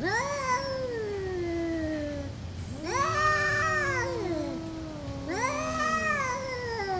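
Two domestic cats squaring off and yowling at each other: three long, drawn-out caterwauls that rise and then slide slowly down in pitch, with a second, lower voice overlapping the middle one. These are the threat yowls of a cat fight.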